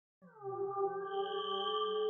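An eerie ambient drone fading in: several sustained ringing tones, a few sliding down at the start, swelling steadily, with a higher tone joining about a second in.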